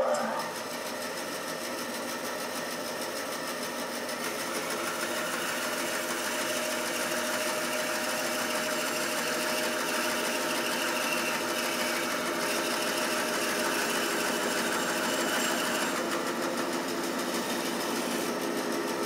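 Band saw running steadily while its blade cuts a slot into a wooden block fed slowly into it. It is a steady machine hum with a whine, growing slightly louder over the first several seconds.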